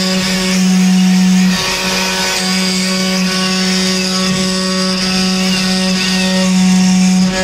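CNC wood router's spindle running steadily as it carves wood, a constant hum with a brief dip about a second and a half in.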